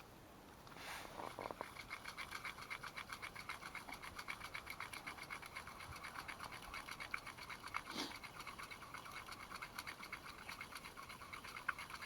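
Fishing line being wound up on a small ice-fishing reel: a rhythmic scratching of about four to five strokes a second as the bait feeder is brought up from the bottom.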